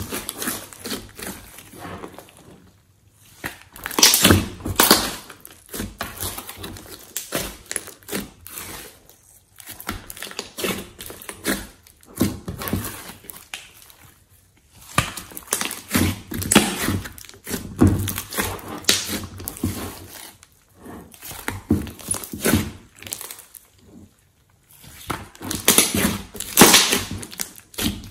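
Hands squeezing, kneading and pressing a large mass of thick slime mixed with clay, makeup and glitter. The slime gives irregular wet squelches and crackling pops in spells of a few seconds, with short pauses between them.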